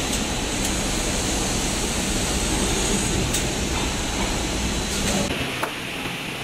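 Automatic motor assembly line running: a steady machine hum and hiss with a few sharp clicks from its actuators. About five seconds in, the noise drops and turns thinner.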